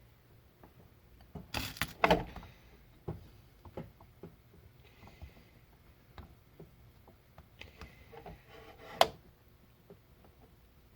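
Scattered clicks and light knocks of tools and parts being handled on a workbench, with a louder clatter about two seconds in and a sharp knock about nine seconds in.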